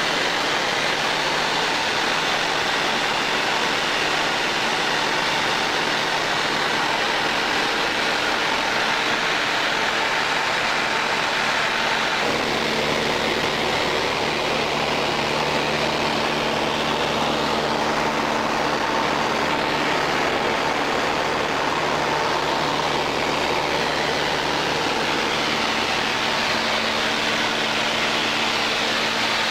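Steady drone of a light aircraft's piston engine and propeller heard inside the cabin, with constant hum tones under a wash of noise. A deeper low hum comes in about twelve seconds in and drops away near the end.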